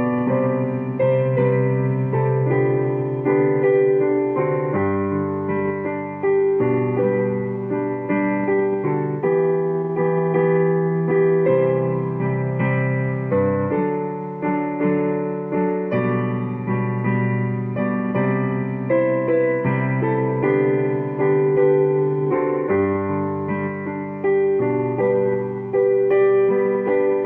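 Keyboard with a piano sound playing the hymn tune in sustained chords over a bass line that changes every second or two.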